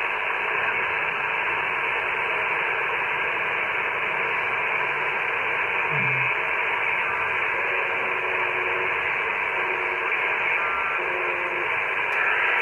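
Steady hiss of static from an Icom IC-718 HF transceiver's speaker as its receiver is tuned in lower sideband across the 40-metre band near 7 MHz. A few short faint tones pass through the static, around halfway and later on.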